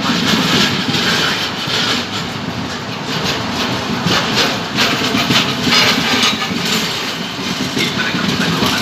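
Historic passenger coaches rolling past on arrival, a steady rumble with their wheels clicking and clattering over the rail joints.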